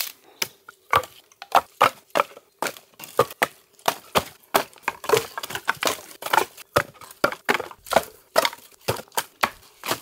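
Dry, dead sticks snapped by hand and clacking against one another as they are stacked into a pile: an irregular run of sharp cracks and wooden knocks, two or three a second.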